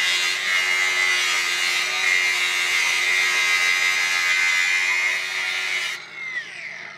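Cordless angle grinder grinding on a rusted steel tube, a steady high whine with a dense scraping edge. About six seconds in it is switched off and its whine falls in pitch as the disc spins down.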